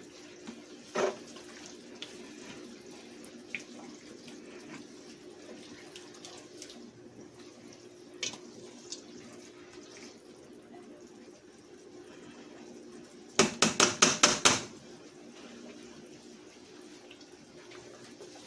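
Chicken hearts and onions sizzling steadily in oil in a frying pan, with a few light clicks and, a little past the middle, a quick run of about six knocks like a utensil rapping the pan.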